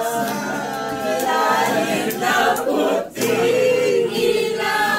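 Several voices singing together, with a short break about three seconds in followed by a held note.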